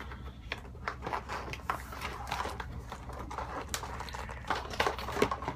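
Cardboard keyboard packaging being handled and pried at: irregular scrapes, rustles and light knocks as a cable compartment is worked open.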